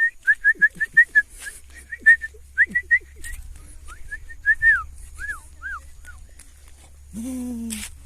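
A bird calling outdoors: a fast run of short, high chirps, about six a second, then slower notes that rise and fall. Near the end comes a brief lower call of under a second.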